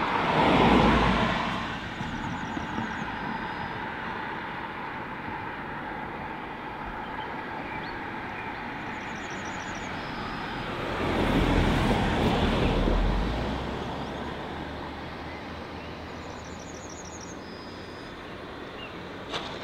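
Steady vehicle rumble that swells twice as something passes close, about a second in and again around eleven to thirteen seconds in, each time sweeping down in pitch.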